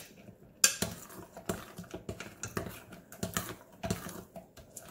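A fork stirring thick pancake batter in a glass mixing bowl, clicking and scraping against the glass in quick, irregular taps.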